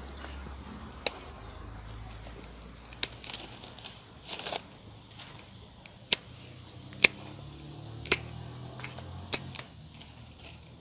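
Hand pruning shears snipping through a bird's nest fern division's root ball: about half a dozen sharp snips at irregular intervals, with soft rustling of soil and fronds between them.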